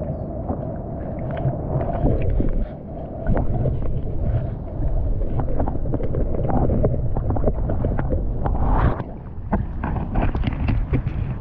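Muffled underwater sloshing and rumble picked up by a camera held under lake water, with many small clicks and knocks from handling. Near the end the camera comes up out of the water.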